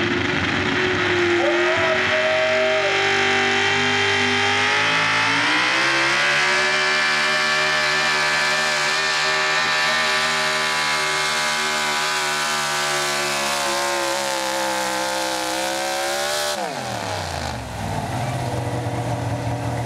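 Engine of a pro stock 4x4 pulling truck running at full throttle as it pulls the sled. The pitch climbs about five seconds in and is held high, then falls sharply near the end as the throttle comes off at the end of the pull. It settles to a lower, slower running note.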